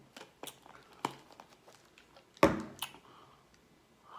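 Plastic drink bottle being handled: a few light clicks and crinkles as its screw cap is twisted, then a loud knock about two and a half seconds in as the bottle is set down on the table.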